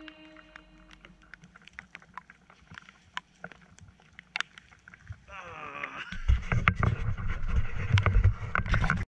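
Raindrops ticking irregularly on a jacket close to the microphone. A brief falling tone comes just after five seconds, then from about six seconds wind buffets the microphone in a loud low rumble under the ticking, until the sound cuts off abruptly.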